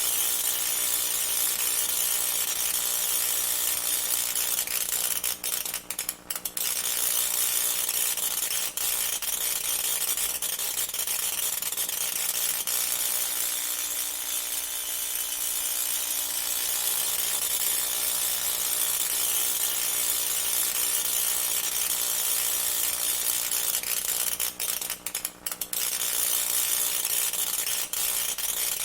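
Tesla coil discharging: a continuous crackling buzz of sparks over a steady hum, cutting out for a moment about five seconds in and again about twenty-five seconds in.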